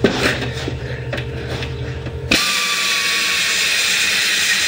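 Pneumatic air drill boring a hole in a riding mower's fender pan, the bit clicking and rattling in the metal. About halfway through, the sound switches suddenly to a steady high hiss and whine.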